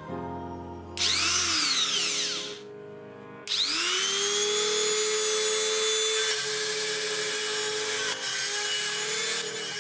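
Handheld rotary tool with a carbide burr, switched on briefly about a second in and winding down, then started again about three and a half seconds in and running at a steady whine as it grinds a metal sprocket. Music plays underneath.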